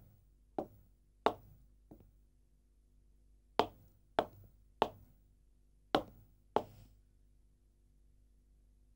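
Footsteps of hard-soled shoes: eight sharp heel strikes at a walking pace, in three short runs with brief pauses, stopping a couple of seconds before the end.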